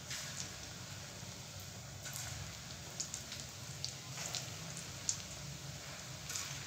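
Moong dal pakora batter sizzling in hot oil in a kadhai, with scattered sharp crackles as pieces of batter are dropped in by hand.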